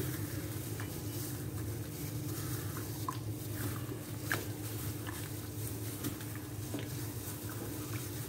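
Soft wet squelching and patting of a plastic-gloved hand working a thick spiced yogurt marinade into raw chicken pieces in a glass bowl, with scattered small clicks. A steady low hum runs underneath.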